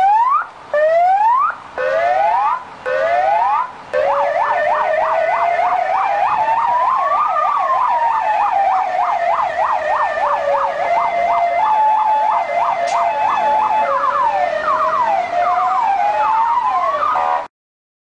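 Fire-engine siren cycling through its tones. It gives four short rising whoops, then a fast yelp layered over a slow wail that climbs and falls. A brief two-note hi-lo follows, then more rising whoops, and it cuts off suddenly near the end.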